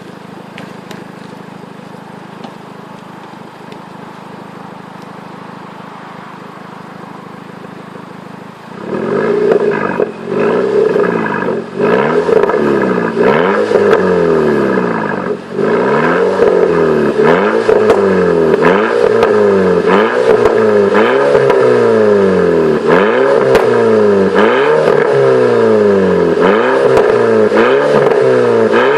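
Volkswagen Golf Mk5 GTI's 2.0 TFSI turbocharged four-cylinder engine idling steadily. About eight and a half seconds in, it is revved hard, over and over, roughly once a second, the pitch climbing and dropping back each time.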